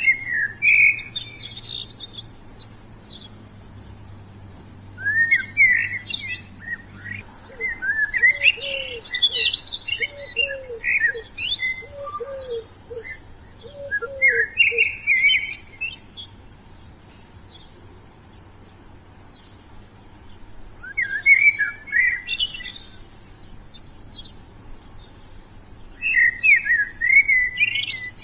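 Wild songbirds singing: bursts of quick, high chirping phrases every few seconds with quieter gaps between. In the middle, a lower call of about eight short, falling notes repeats at an even pace under the chirping.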